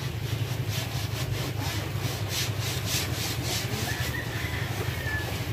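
Paintbrush scrubbing a first coat of paint onto a plywood boat hull: quick rasping back-and-forth strokes, about four a second through the middle, over a steady low hum.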